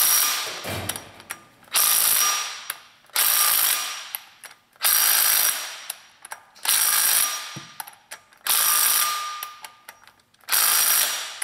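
Earthquake 20V cordless impact wrench hammering flywheel bolts down into the crankshaft in seven short bursts, each starting hard and fading out over about a second, as it goes from bolt to bolt. The bolts are being run down snug before final torquing.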